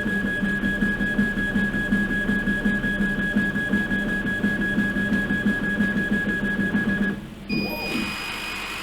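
Laser engraver running while it marks anodized aluminium: a steady high whine over a fast, pulsing buzz from its motors, which stops suddenly about seven seconds in.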